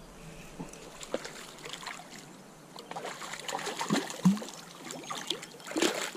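A large hooked river sucker thrashing and splashing at the surface of a shallow stream, in irregular splashes that grow louder from about three seconds in, the strongest about four and six seconds in.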